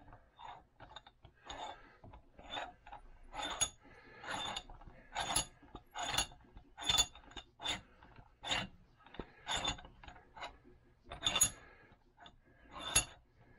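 1967 Wilton Bullet bench vise being cranked by its handle to close the new jaws: a string of short metal clicks and clacks from the turning handle and screw, about two to three a second, uneven in loudness.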